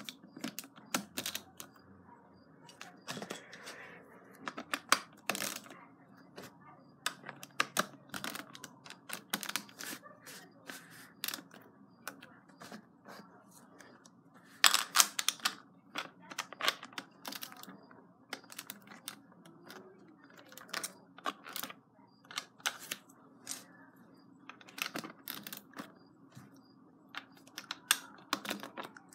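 LEGO bricks being handled and pressed onto a baseplate by hand: many irregular, sharp plastic clicks and snaps.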